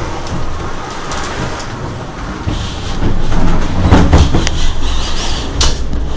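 Violent storm wind roaring and buffeting the microphone with rain, with a few sudden knocks about four and five and a half seconds in.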